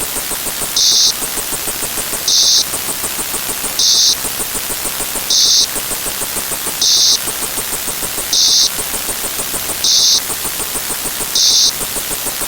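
Layered electronic sound effects: a constant static hiss with a rapid chattering pulse and fast high ticking. A short burst of sharper high hiss recurs evenly about every one and a half seconds, eight times.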